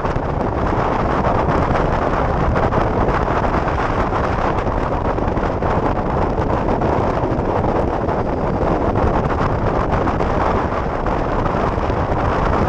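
Steady wind rush over a helmet-mounted microphone on a motorcycle riding at road speed, with engine and road noise blended beneath it.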